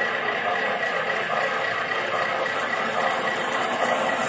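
Model trains running on their track: a 1950s Lionel Santa Fe F3 O scale diesel pair and HO scale locomotives, giving a steady whir of electric motors and wheel noise on the rails.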